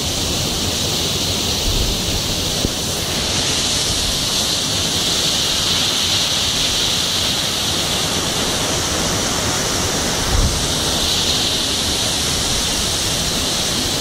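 Partly frozen waterfall rushing steadily, an even hiss of falling water. There is a brief low thump about ten seconds in.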